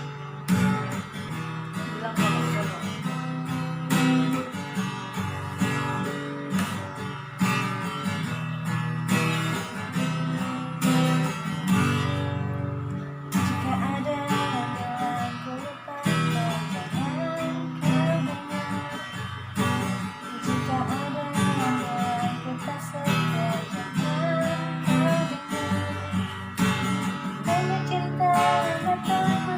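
Acoustic guitar strummed in a steady rhythm, a song intro following a "1, 2, 3, 4" count-in, with a wavering melody line over it from about eight seconds in.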